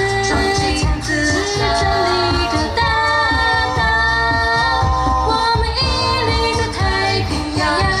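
A cappella vocal group singing a military song in a slow, lyrical arrangement. Several voices hold and shift chords in close harmony over a low, pulsing sung bass part.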